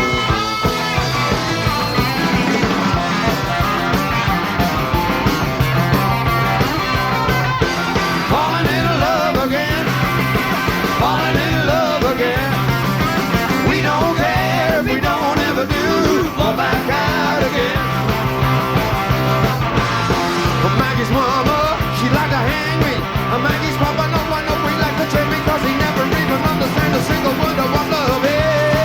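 Live rock band with electric guitars, bass guitar and drums playing an instrumental break, a lead line bending up and down in pitch over the steady beat.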